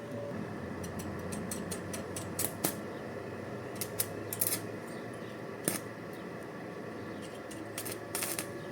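Scattered short, sharp clicks and light taps, a few in quick succession at a time, over a steady background hum.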